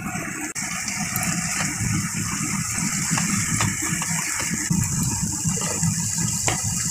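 Lote fish (Bombay duck) and potato mixture frying in a non-stick kadai while it is stirred and scraped with a silicone spatula. Steady rushing noise throughout, with a few light knocks of the spatula against the pan.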